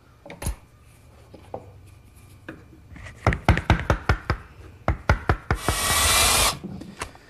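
Wood-chisel work struck with a mallet: a few separate knocks, then a quick run of strikes, paring out a shallow recess in wood for a hinge knuckle. This is followed by a brief hissing, whirring burst about a second long.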